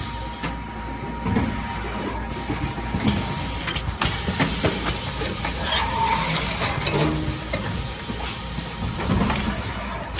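Servo-driven sachet counting machine on a wet cat food pouch packaging line running: irregular clicking and clattering over a steady low machine hum.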